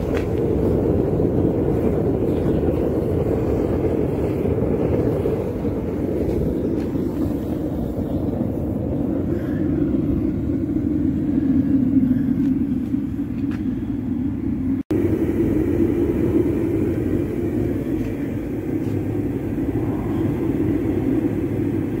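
Homemade propane burner firing into a refractory-lined bucket foundry furnace during its first heat-up to dry out the refractory: a steady, low rushing noise from the burner flame, with one momentary break about 15 seconds in.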